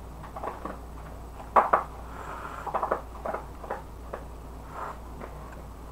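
Rice stick noodles being slurped up into the mouth in a series of short, wet sucks, the loudest about a second and a half in, followed by a quicker cluster and a few lighter ones.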